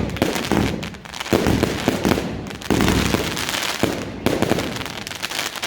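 Evolution Snowstorm 2.0 compound firework cake firing its shots: a sharp launch report about once a second, each followed by a dense crackle of the bursting bouquets.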